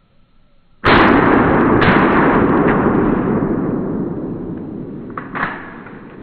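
A shotgun shot about a second in, breaking out of near silence, followed by a long noisy rumble that fades slowly over the next few seconds. A few fainter sharp cracks follow, with a louder one near the end.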